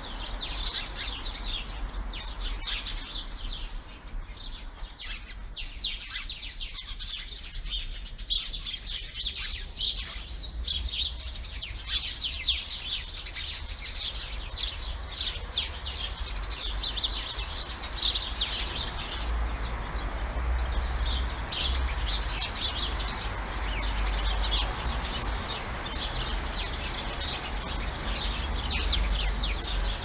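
A flock of sparrows chirping continuously, many short chirps overlapping one another without a break.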